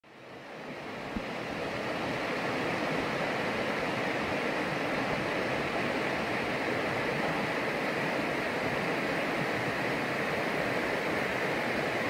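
Steady rush of a shallow river running over a rocky riffle, fading in over the first two seconds.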